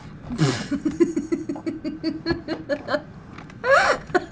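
A boy laughing: a sharp breath, then a long run of quick, even giggles that fade out, with a short voiced sound near the end.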